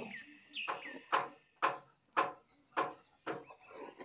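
Stone pestle turning in a traditional stone grinding mortar, grinding moong dal batter with a regular knock-and-scrape about twice a second. A bird chirps briefly near the start.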